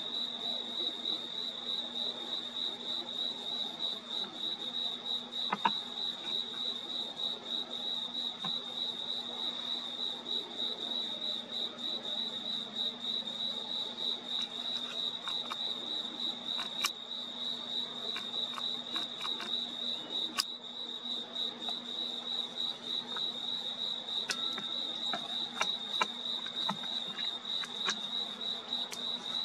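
Crickets trilling steadily in a fast, evenly pulsing chorus, over a faint low hum, with a few scattered soft clicks.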